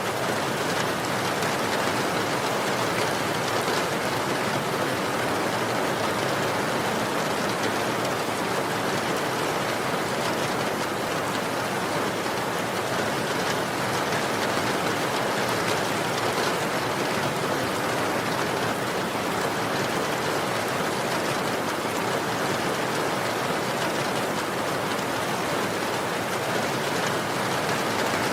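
Steady rainfall, an even hiss of rain on surfaces.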